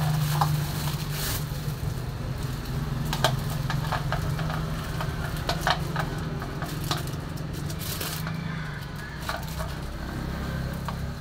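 Clear plastic packaging crinkling and rustling in the hands as a plastic bath dipper cup is unwrapped, in irregular crackles over a steady low hum.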